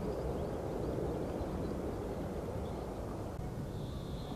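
Steady low rumble of a distant jet airliner, a Swiss Boeing 777, with faint bird chirps above it, the clearest one near the end.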